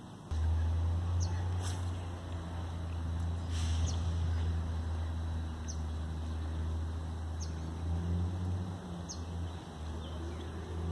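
A steady low hum with a short, high, falling chirp repeating every second and a half to two seconds, typical of a bird calling.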